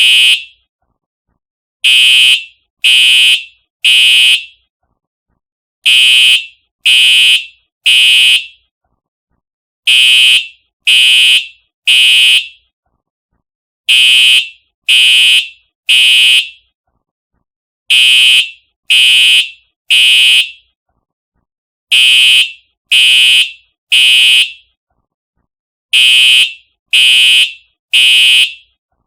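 Simplex TrueAlert fire alarm horn sounding in the temporal-3 evacuation pattern: three loud, shrill blasts about a second apart, then a pause of about a second and a half, repeating over and over.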